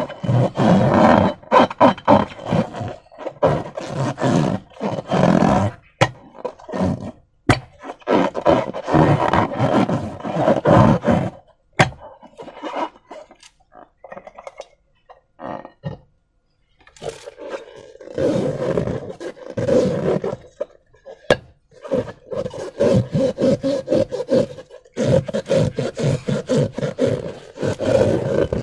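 Slime being squeezed and worked by hand, squelching and crackling in bursts of one to a few seconds, with a quiet pause about halfway through.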